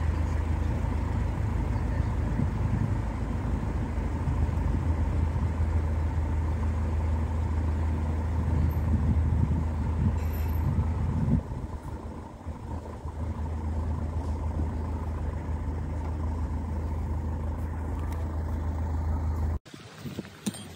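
Narrowboat's diesel engine running under way, a steady deep drone with a fainter higher hum. It gets noticeably quieter about eleven seconds in and cuts off abruptly shortly before the end.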